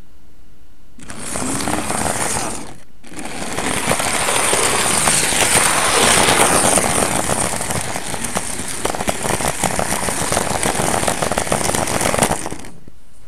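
HO-scale model train running along its track, heard up close: a dense rattle of wheels and motor full of fine clicks. It starts about a second in, breaks off briefly around three seconds, and stops shortly before the end.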